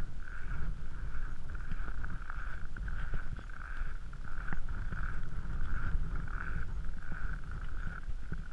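Footsteps squeaking and crunching in cold, packed snow at a steady walking pace, about three steps every two seconds, over a low rumble of wind on the microphone.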